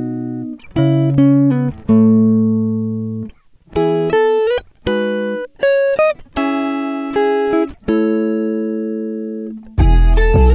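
Background music: a plucked guitar playing single notes and chords, each fading after it is struck. A fuller arrangement with deep bass comes in near the end.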